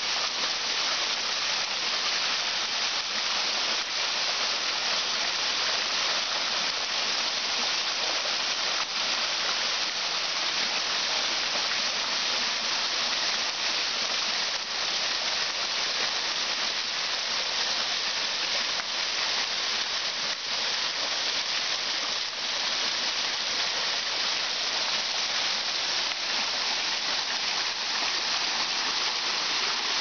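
Small forest waterfall splashing steadily down stepped rock ledges: a constant, even rush of falling water with a bright, hissy edge.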